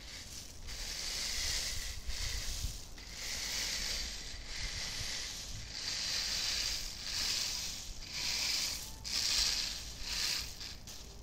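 A rake dragged again and again through a deep layer of in-shell hazelnuts spread out to dry, stirring them. The nuts rattle and rustle with each pull, about one stroke a second.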